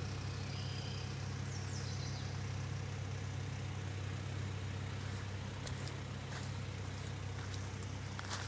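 An engine running steadily at a constant speed, giving an unchanging low hum. About two seconds in, a brief high falling chirp is heard.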